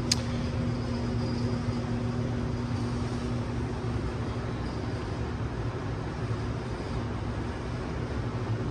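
Audi B5 S4's 2.7-litre twin-turbo V6 idling steadily, with one sharp click right at the start.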